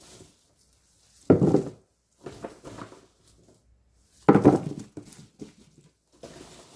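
Unpeeled garlic cloves dropped onto paper towel in a storage container, tumbling and rattling. The two loudest pours come about a second and about four seconds in, with softer rattles between them and near the end.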